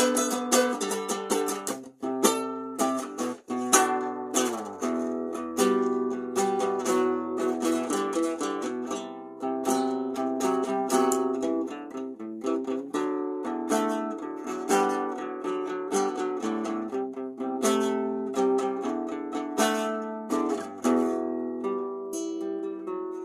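Music played on a plucked string instrument: a quick run of picked notes, each struck sharply and fading, with two brief gaps a couple of seconds in.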